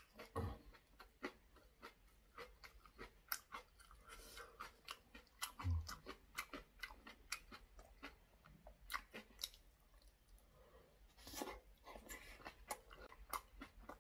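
A person chewing a mouthful of braised aged kimchi: a faint, irregular run of small mouth clicks and smacks.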